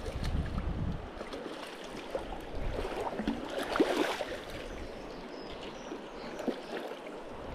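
River water running and splashing over stones, with some wind buffeting the microphone in the first second.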